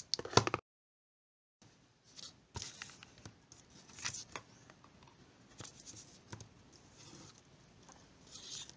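A quick run of sharp clicks, then about a second of dead silence, then quiet rustling, scraping and light taps of hands handling a small flashlight and its plastic carrying case.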